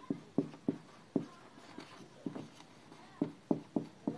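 Marker pen writing on a whiteboard: about a dozen short, uneven strokes as a word is written out by hand.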